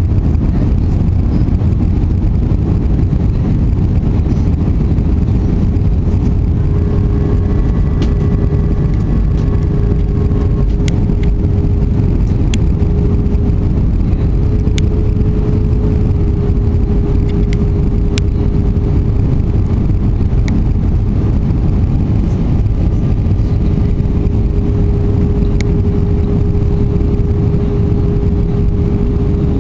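Airliner cabin noise on approach to landing: a steady, loud low rumble of jet engines and airflow, with a constant droning hum over it. A few faint ticks sound here and there.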